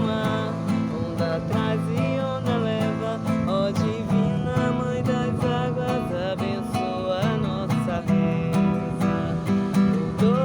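Music: an acoustic guitar strumming steadily under a melody line that slides between notes.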